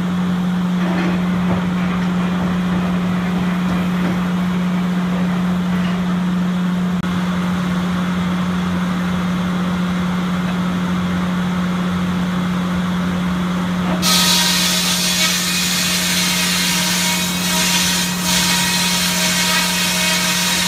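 Farm sawmill machinery running with a steady, even hum. About two-thirds of the way in, a harsher hiss with higher whines comes in suddenly over it.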